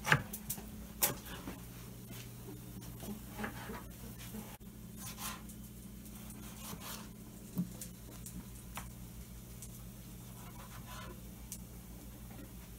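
A knife chops on a cutting board, with two sharp strokes in the first second. Then come only faint kitchen handling sounds, occasional soft knocks and rubbing, over a steady low hum.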